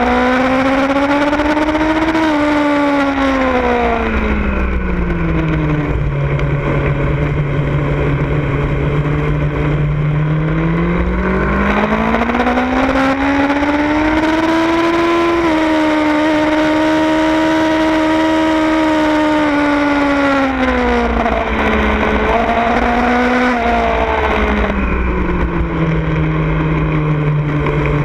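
Onboard sound of a Yamaha R1's inline-four engine in second gear, the revs climbing and falling several times as the bike accelerates and slows through corners, with a few seconds held high in the middle and a short blip near the end. Wind rushes over the fairing underneath.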